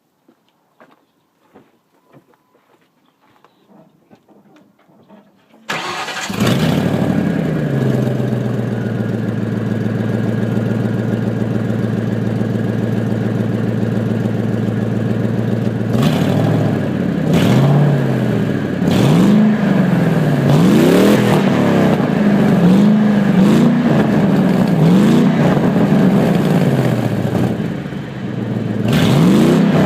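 1997 Ford F-150 engine starting after a few seconds of faint clicking, running through a glass pack muffler and emptied catalytic converters: it idles steadily for about ten seconds, then is revved repeatedly, its exhaust note rising and falling many times.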